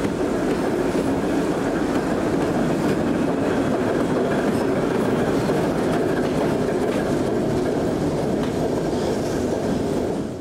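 Diesel shunting locomotive running light past at close range: a steady engine rumble with wheels clicking over the rail joints.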